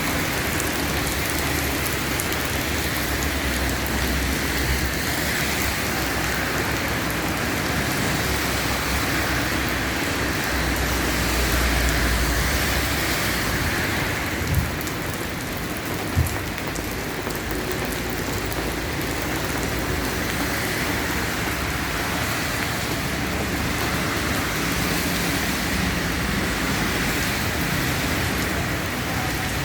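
Steady rain falling on hard surfaces, an even hiss throughout, with two short knocks about halfway through and a low rumble swelling and fading twice in the first half.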